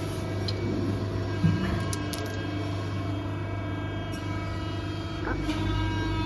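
A 200-ton CNC hydraulic press brake running with a steady hum. A few short metallic clicks with a high ring come about a second and a half to two seconds in.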